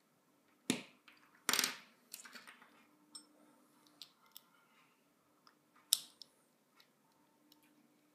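Lego bricks being handled and pressed together: scattered sharp plastic clicks and small rattles, the loudest just under a second in, a short rattle soon after, and another sharp click near six seconds.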